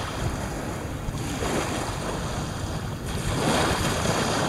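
Small waves washing up on a sandy beach, swelling twice as they break and run up the sand, the second louder, with a low rumble of wind on the microphone.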